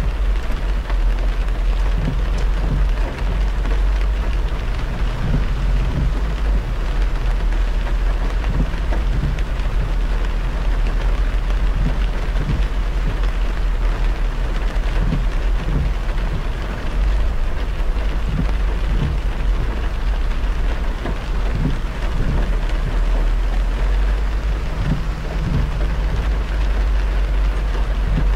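A car driving on a wet expressway in the rain: the steady patter of rain and the hiss of tyres on the wet road, over a constant deep road-and-wind rumble.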